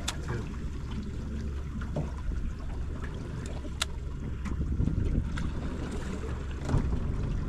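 Small aluminum fishing boat on the water: a steady low rumble of wind and water, with a few faint clicks.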